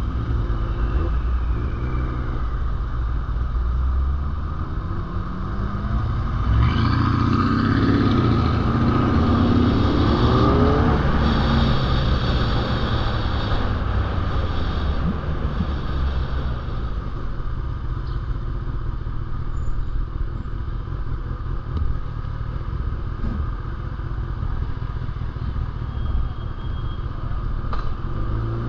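Sport motorcycle engine running while riding through traffic, with a steady rush of wind and road noise. About seven seconds in the engine rises in pitch as the bike accelerates, then settles back to a steady cruise.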